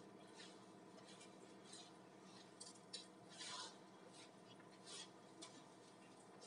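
Faint scrapes and rubs of a hand kneading crumbly gram-flour dough against a stainless-steel bowl, a few short scratches with a longer one around the middle.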